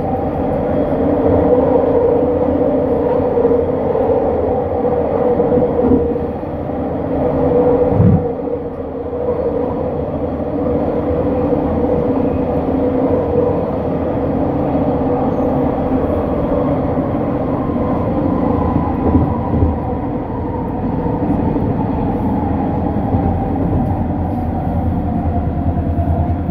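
Vancouver SkyTrain car running along its guideway, heard from inside the car: a steady whine from its linear induction motors over the wheel and car rumble, with a single low knock about eight seconds in. In the second half a higher whine slides steadily down in pitch.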